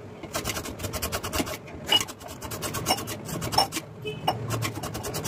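Bottle gourd being peeled by hand with a blade: rapid, repeated scraping strokes across its skin.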